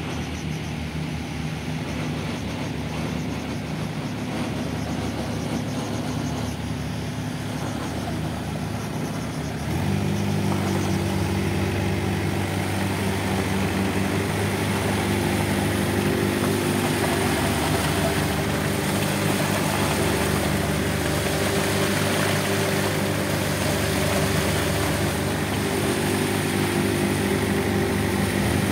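Diesel engines of a self-loading concrete mixer and a telescopic handler running steadily. About ten seconds in the engine note rises and gets louder and holds there, the engine driving the mixer drum to discharge concrete down the chute into the bucket.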